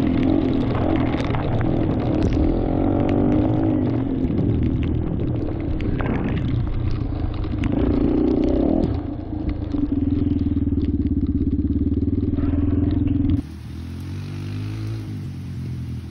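Yamaha TT-R230's air-cooled single-cylinder four-stroke engine running close up under varying throttle, its pitch rising and falling as the bike rides through wet grass. About thirteen seconds in, it cuts to a quieter, distant recording of the same kind of engine revving over a steady hiss.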